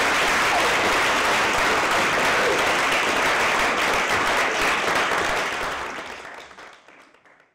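Audience applauding, with an occasional cheer, fading out near the end.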